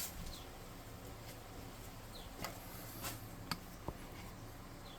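Faint scratching of a paintbrush being dry brushed over a small plastic miniature, with a few light clicks and taps of handling.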